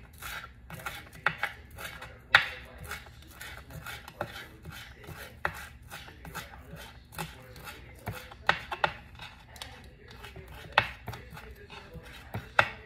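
Kitchen knife chopping green herbs on a wooden cutting board: irregular quick knocks of the blade on the board, the loudest about two and a half seconds in.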